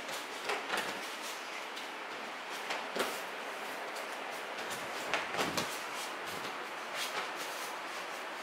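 Soft thuds and slaps of a child's body landing on tatami mats during forward rolls (aikido ukemi), four or five knocks a second or two apart, over a steady background hiss.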